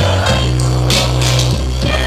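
Hip-hop beat played loud over a club PA system, with deep sustained bass notes and regular drum hits.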